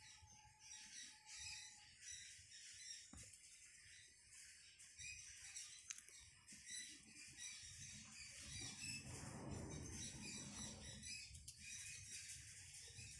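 Near silence with faint, repeated chirping of small birds in the background. Soft rustling of hands on the wheel and tyre about two-thirds of the way in.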